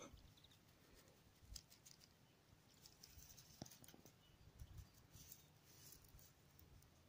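Near silence, with faint scattered rustles and small clicks.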